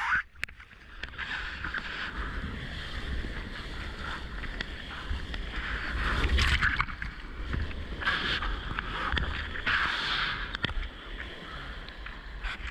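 Whitewater kayak riding a breaking wave: rushing, hissing foam and spray around the hull and paddle. It swells louder about halfway through and twice more towards the end.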